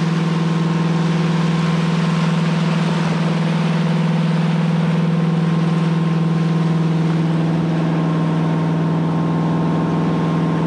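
Boat's Detroit Diesel engine running steadily under way, a constant even hum, with the hiss of the wake churning behind the stern.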